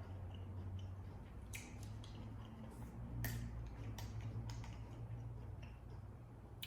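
Close-up chewing and eating mouth sounds: scattered short clicks and wet smacks every second or so, over a steady low hum.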